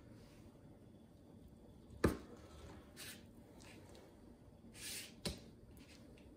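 Knife slicing raw venison into thin steaks on paper over a countertop: a sharp knock about two seconds in, a short scraping hiss later on and a few soft taps, over quiet room tone.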